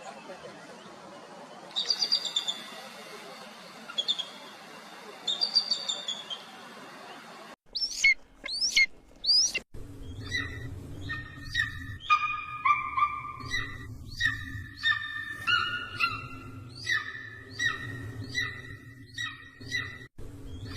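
Eagle calls: a few bursts of high, chittering calls, then, after a cut to another recording about eight seconds in, sharp falling whistles followed by a long run of rapid, repeated piping notes over a low hum.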